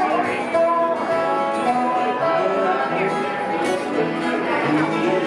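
Live acoustic bluegrass band playing an instrumental passage with no singing: banjo, two acoustic guitars and a lap-played dobro.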